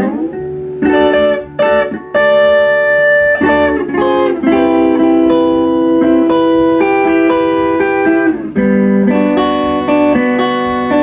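Music carried by guitar chords: choppy stop-start chords for the first couple of seconds, then long ringing chords.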